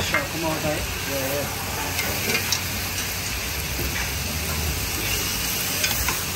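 Water buffalo steaks, corn and fries sizzling in a cast-iron grill pan over a gas flame: a steady frying hiss, with a few light clicks about two and a half seconds in.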